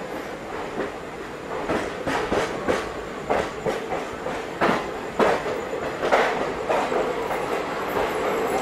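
Indian express train's coaches rolling over rail joints and points as the train enters a station, with irregular clanks and knocks from the wheels over a steady rushing noise. Heard from an open coach door, it grows louder after about a second and a half.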